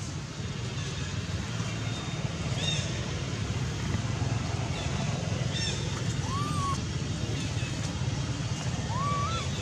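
Steady low outdoor rumble with a few short high chirps, then two brief whistled calls in the second half, the first arching and the second rising in pitch.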